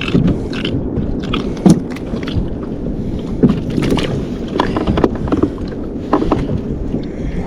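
Steady wind and water noise around a kayak at sea, with scattered short knocks and scrapes as a freshly caught fish is handled and unhooked on board.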